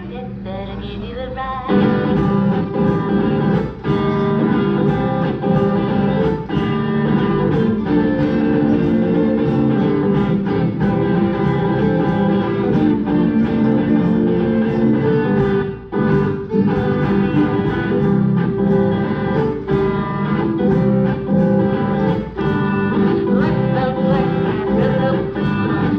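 Live music from a violin and a guitar playing together in a steady rhythm. It is quieter for the first two seconds, then comes in at full strength.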